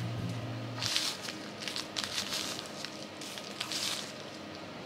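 Fingers pressing and patting dry chocolate crumbs onto the cream-coated sides of a cake, a soft crackly rustle in several short bursts as crumbs fall onto the wooden board and baking paper. A held music note fades out about a second in.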